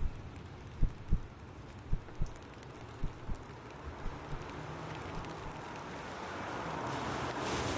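Film sound-design heartbeat: low double thumps about once a second, growing fainter, while a rushing noise swells in and becomes the loudest sound near the end.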